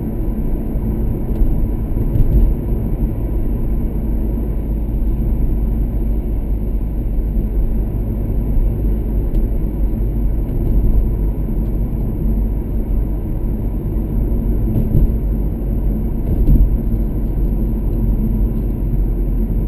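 Steady low road rumble of a car driving, engine and tyre noise heard from inside the cabin.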